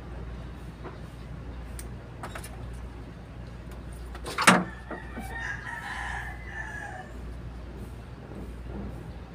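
A sharp knock about four and a half seconds in, then a rooster crowing once for about two seconds, over a low steady hum.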